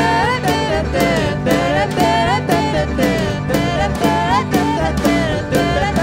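A live bluegrass-style folk band playing: acoustic guitar, electric bass, mandolin, banjo and drum kit on a steady beat about twice a second, with voices singing over it.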